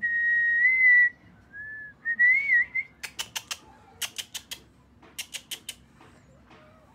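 A person whistling: one high note held for about a second, a short lower note, then a brief warbling note. Then come three quick runs of four sharp clicks each.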